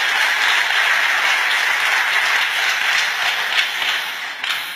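Audience applauding, a steady wash of many hands clapping that dies away near the end.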